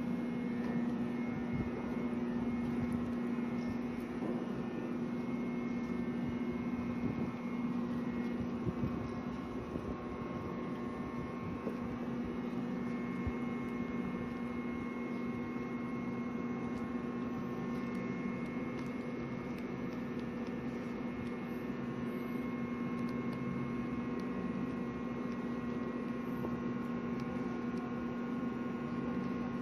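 Steady machine hum with a constant low drone and a faint higher whine over a light background hiss.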